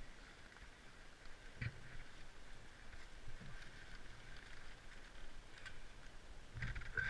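Faint wind hiss on a helmet-mounted camera with light handling sounds from gloved hands and ski-pole straps, including one short tap about a second and a half in.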